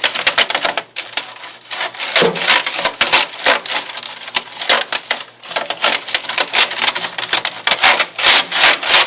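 A damp paintbrush scrubbing briskly back and forth over a computer keyboard, the bristles rasping and the keys clicking with each rapid stroke, with a couple of short pauses.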